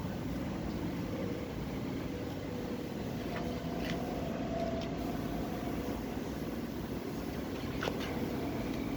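Steady low mechanical rumble, with a few faint short clicks about halfway through and again near the end.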